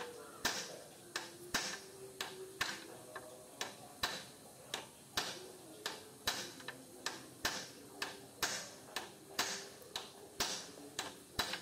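A steel shaft striking a motorcycle steering-head bearing cone inside the head tube, about two sharp metallic knocks a second with a short ring, driving the new cone in tight. The sound of the strikes is what tells when the cone is fully seated.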